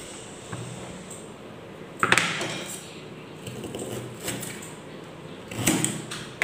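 Kitchen knife slicing a peeled carrot on a plastic cutting board. There are sharp knocks on the board, the loudest about two seconds in and another near the end.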